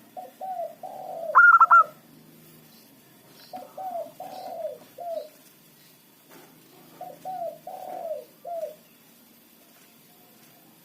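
Zebra dove (perkutut) singing: three phrases of short, rolling coo notes a few seconds apart. Three quick, louder, higher chirps cut across the first phrase.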